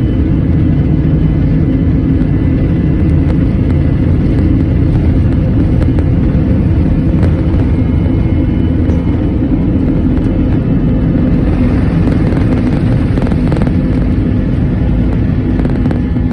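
Airbus A321-200's twin jet engines at takeoff power heard from inside the cabin: a loud, steady roar with a low hum, over the rumble of the wheels on the runway during the takeoff roll and liftoff. The noise eases a little near the end.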